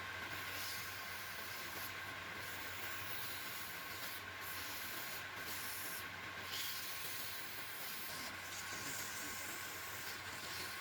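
A machine running steadily: an even hiss with a constant low hum and a faint high whine.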